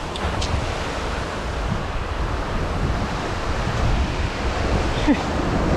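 Waves breaking and washing against a rocky shoreline in a steady rush, with wind noise on the microphone.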